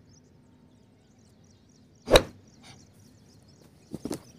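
A person thrown down onto a thin foam mattress: one sharp, loud smack about two seconds in, then a couple of softer thumps near the end as the body rolls and settles on the mat.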